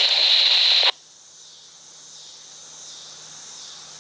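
Scanner radio hiss that cuts off suddenly with a click about a second in, leaving a steady high chorus of insects.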